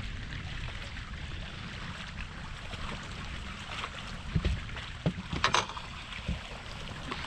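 Strong wind buffeting the microphone on an open boat, a steady low rumble with a rushing hiss. About halfway through, a few short knocks rise above it.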